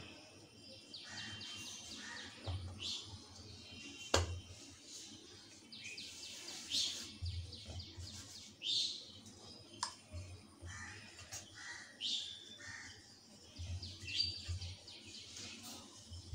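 Birds chirping, with short trilled calls repeating every one to three seconds. A sharp click comes about four seconds in, and a few soft low thumps are heard underneath.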